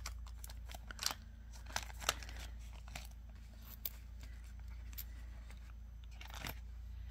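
Hands handling small bead-kit items, plastic bags and a paper sheet: a few scattered light clicks and soft rustling, over a faint steady low hum.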